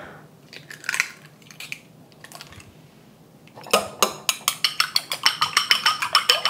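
Chopsticks beating eggs in a ceramic bowl: from about halfway through, a fast, even clicking of about six taps a second against the bowl, which rings with each tap. A few faint clinks come before it.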